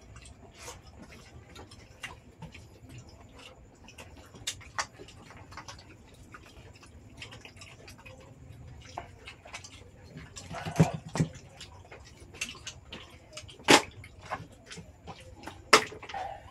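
Oyster shells clicking and clacking irregularly as they are picked up, handled and set down during eating, with a few louder knocks of shell on shell about eleven, fourteen and sixteen seconds in.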